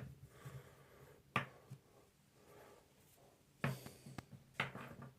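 Faint handling of a braided USB cable: soft rustling and a few light clicks and taps, the sharpest about a second and a half in and more near the end.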